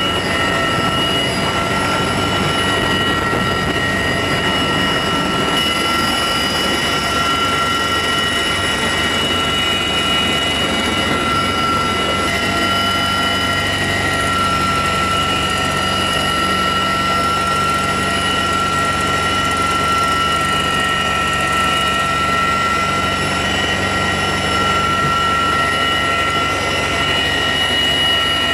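Steady cabin noise inside a CH-53E Super Stallion heavy-lift helicopter in a hover: a dense rumble of rotors and engines with several steady high-pitched whining tones over it.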